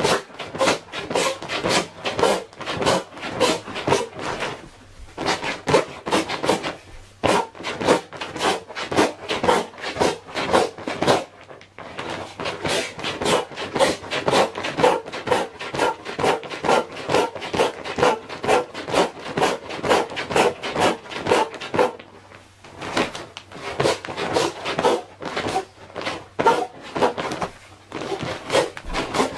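Built-in foot pump of a nylon inflatable camping mat being stomped on repeatedly, a steady rhythm of squashing, crinkling strokes with a few short pauses, pushing air into the mat through its open valve.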